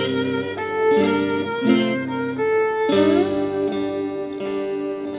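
Violin and a plucked lute playing a folk tune together, the instrumental close of a sung song. After a few fresh plucked phrases, the last chord is held and fades away near the end.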